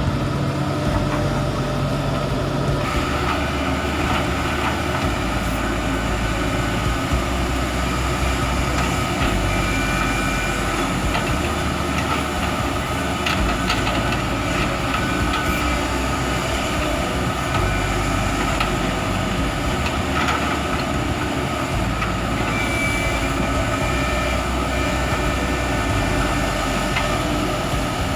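Excavator running steadily under heavy working load, with a steady whine and a few sharp metallic clanks.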